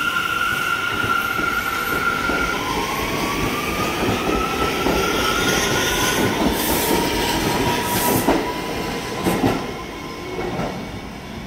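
R179 subway train pulling out of the station and gathering speed. A steady whine gives way about two seconds in to a whine rising in pitch, over a continuous rumble of wheels on rail. Several sharp clacks come from the wheels over rail joints, and the sound fades near the end as the last car moves away.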